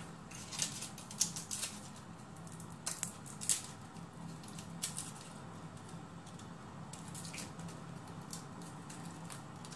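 Small kitchen knife scraping and picking at a garlic clove as its papery skin is peeled off by hand: faint, scattered light clicks and scrapes over a low steady hum.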